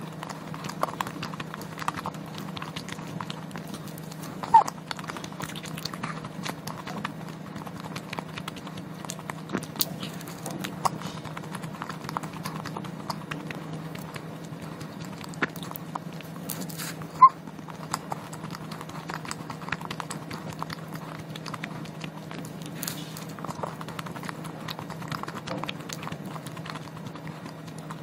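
Close-miked chewing of a wafer-shelled ice cream: soft wet mouth clicks and crunches scattered through, with a couple of sharper clicks. A steady low hum sits underneath.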